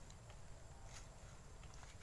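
Near silence: a faint low rumble with a few soft clicks, one about a second in and a couple near the end.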